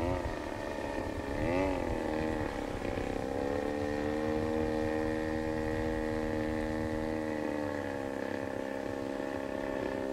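Engine of a 1:5 scale Stearman PT-17 radio-controlled model biplane in flight. Its note wavers up and down at the start and again about two seconds in, then holds steady, dipping a little near the end.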